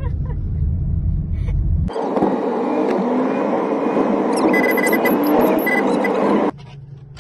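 Car driving, heard from inside the cabin: a low road rumble, then after an abrupt cut about two seconds in, a louder steady hiss of road and wind noise with a few short high beeps in the middle, cut off abruptly near the end.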